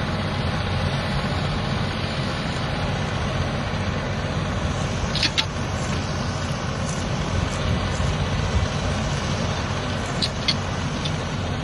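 Massey Ferguson 4707 tractor's diesel engine running steadily as it pulls a disc harrow through sandy soil, with a few sharp clicks about halfway through and again near the end.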